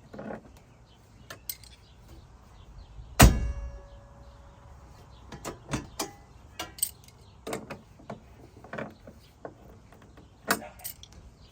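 A tube half door on a Jeep Cherokee XJ is swung shut: one loud metal clang that rings on briefly, about three seconds in. Lighter clicks and knocks of the door and its hinge are scattered through the rest.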